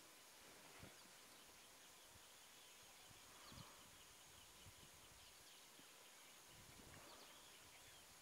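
Near silence: faint outdoor ambience with a few faint, high bird chirps.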